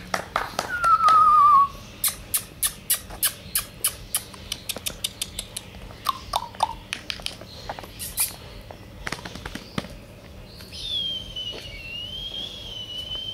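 A person whistling and clicking: a short warbling whistle that falls in pitch, then a long string of sharp clicks, and near the end a long, slightly wavering high whistle.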